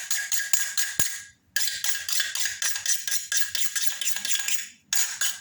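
Kitchen knife blade being sharpened with rapid back-and-forth scraping strokes, about four or five a second, with a faint steady ring under them. The strokes break off briefly about a second in and again near the end.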